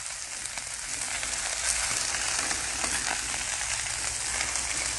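Ribeye steaks and melting butter sizzling on a hot Blackstone flat-top griddle: a steady frying hiss with small crackles, growing a little louder after about a second.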